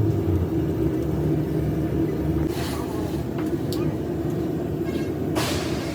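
A motor running with a steady low hum, with two short hissing bursts, one midway and one near the end.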